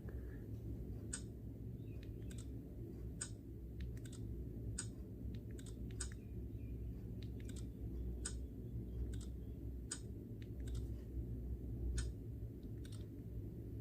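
A smartphone being handled during a repeated lock-and-unlock fingerprint test: sharp clicks about once a second, irregularly spaced, over a low steady hum.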